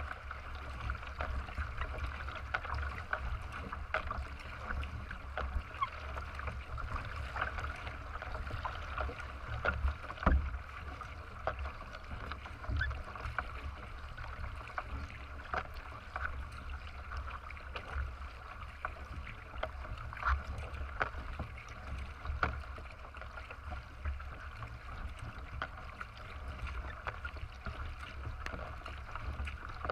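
Racing kayak under way, heard from its front deck: water splashing and rushing past the hull with irregular paddle splashes, and one louder thump about ten seconds in.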